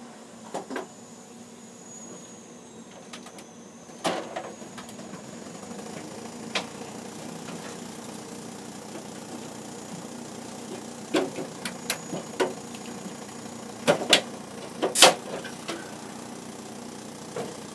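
Scattered clicks and knocks of a Nortel Norstar key system's trunk card being pulled from its slot and a new card pushed in, with the power cord unplugged. The loudest knocks come about fourteen to fifteen seconds in, after a cluster of clicks around eleven to twelve seconds. A steady low hum runs underneath.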